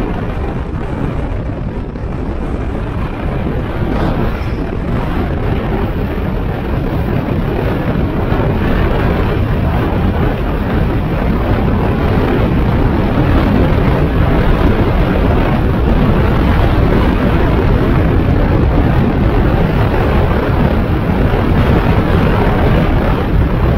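Steady rush of wind and tyre noise heard inside a moving Mahindra Scorpio. It grows gradually louder over the first ten seconds or so, then holds steady.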